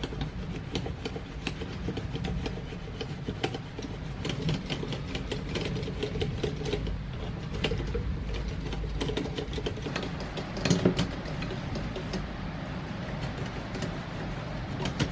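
Hand cleaning of an electric typewriter's plastic casing: irregular clicks, taps and rubbing over a low steady hum, with a louder cluster of clicks about eleven seconds in.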